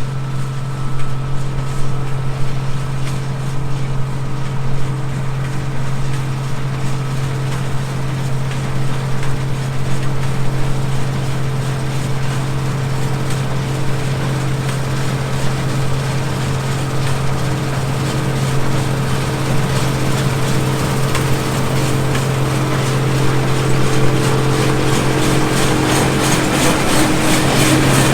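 Combine harvester running steadily while cutting wheat: a constant low engine hum with the even rush of the threshing machinery over it.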